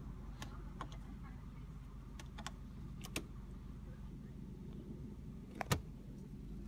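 Mitsubishi Outlander's engine idling, heard from inside the cabin as a steady low hum. Scattered light clicks and rattles come through it, and a sharper knock comes about two-thirds of the way through.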